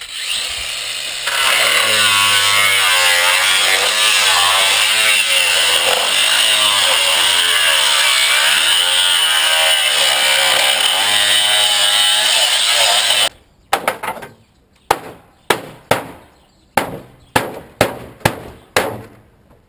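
A power tool cutting into the sheet-metal casing of an old boiler runs loud and steady, its pitch wavering under load. It cuts off suddenly, followed by a run of about ten sharp knocks.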